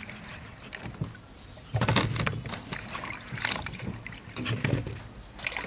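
Water splashing and sloshing in a stainless steel bowl as peeled bananas are washed by hand, in several irregular bursts, the loudest about two seconds in.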